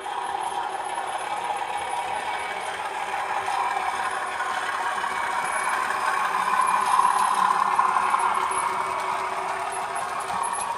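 Model Class 37 diesel locomotive 37418 running along the layout track and hauling coaches: a steady running noise that builds to its loudest as the locomotive passes, about seven seconds in.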